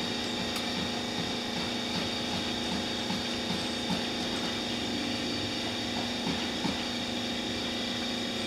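A steady electric motor hum of one fixed pitch, as from a running kitchen appliance's fan, with a few faint knocks from the greasy air fryer basket as it is tipped to drain rendered beef fat into a jar.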